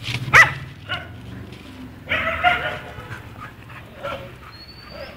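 Puppies yelping: a short, sharp yelp about half a second in, a few smaller yips, and a longer whining cry about two seconds in.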